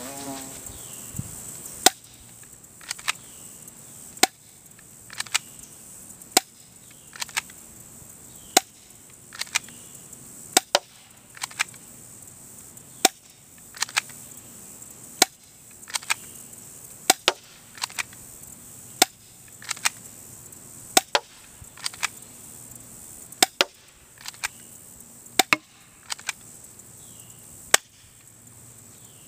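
Airsoft pistol firing single shots at a steady pace of roughly one a second, each a sharp snap, many followed a split second later by a second click.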